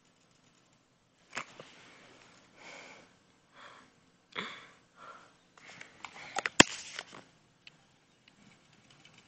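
A string of short, breathy, sniff-like rustles close to the microphone, with one sharp click about six and a half seconds in.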